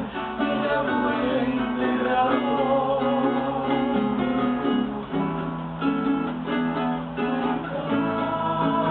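A cuatro and an acoustic guitar strumming together, accompanying several voices singing a song.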